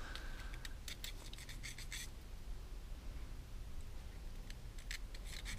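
Faint scratching and small clicks of a fine jet-cleaning file being worked back and forth through the tiny holes of a brass carburettor tube, clearing its fuel passages. The scratches come in quick clusters, one through the first two seconds and another near the end.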